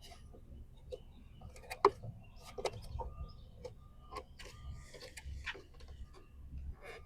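Irregular small clicks and taps of plastic as the side-mirror turn-signal lens is worked and pried loose from the mirror housing, with one sharper click about two seconds in.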